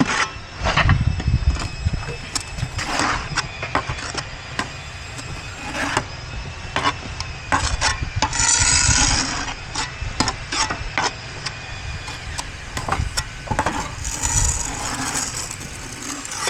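Clay roof tiles being handled and set: irregular knocks and clicks, with two longer scraping passes about eight and fourteen seconds in.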